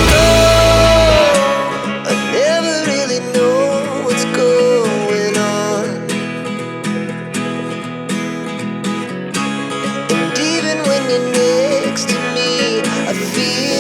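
Background song with a steady beat and a gliding melody line; the deep bass drops out about a second in.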